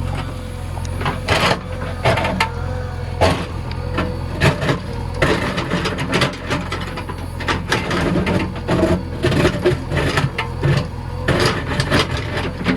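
JCB backhoe loader's diesel engine running steadily, overlaid by frequent knocks and scraping noises from the machine at work.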